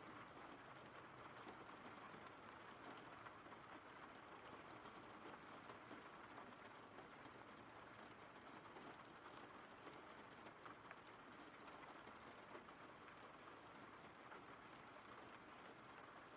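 Faint, steady rain: an even hiss of falling rain with scattered drop ticks.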